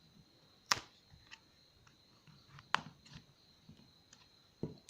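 A few sharp clicks and light taps, three of them louder, as a knife and the plastic parts of a Samsung Galaxy J7 are handled while prying the glued display away from its frame.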